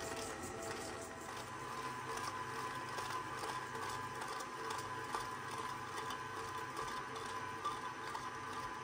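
Electric stand mixer running steadily, its beater creaming margarine, butter and sugar in a stainless steel bowl.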